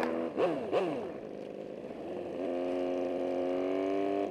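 Honda Magna V4 motorcycle engine heard from the rider's seat while riding, its pitch dropping and rising in the first second, then holding a steady note from about two and a half seconds in, with wind rush.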